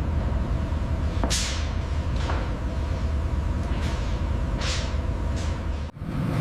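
Steady low rumble of a glassblowing furnace, with several brief hissing sweeps over it. Near the end the sound drops out for a moment and the background changes.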